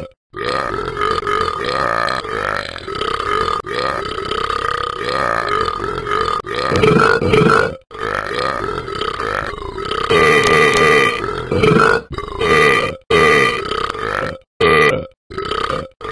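A string of long, drawn-out burps, the first lasting several seconds and later ones shorter, each cut off abruptly.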